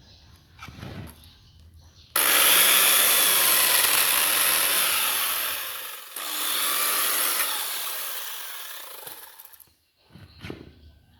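A power tool cutting into wood: a loud, rasping noise that starts abruptly about two seconds in, dips briefly near the middle, then carries on and fades out about a second and a half before the end.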